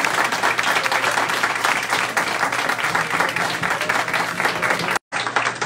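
Audience applauding: a roomful of people clapping steadily, with a split-second break in the sound near the end.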